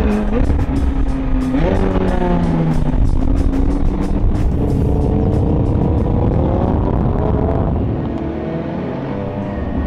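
A sports car's engine revving. Its pitch jumps up about a second and a half in, climbs slowly for a few seconds, then drops off near the end. Music plays underneath.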